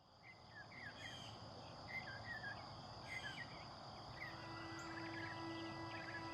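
Faint small-bird chirps, short rising and falling calls in little clusters, over a steady high-pitched drone. A low steady hum joins about two-thirds of the way through.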